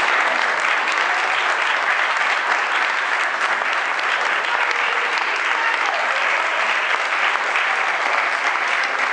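Audience applause: many hands clapping in a steady, dense patter with no let-up, a few voices faintly under it.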